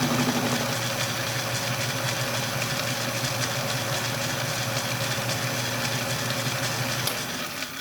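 Atlas 10-D metal lathe running steadily with its milling attachment cutting a flat face on a square bolt head. The machine noise eases off about seven seconds in and drops away near the end.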